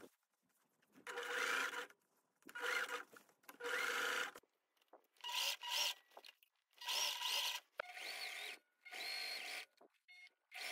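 Domestic sewing machine zigzag-stitching in short stop-start runs, about eight of them, each under a second long. The motor whine rises and falls in pitch as the machine speeds up and stops.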